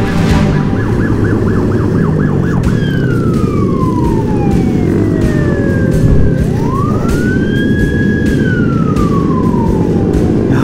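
Police car siren behind the rider: a rapid warbling yelp for the first couple of seconds, then a slow wail that falls, rises again about six seconds in and falls once more. Under it runs the steady noise of the moving motorcycle.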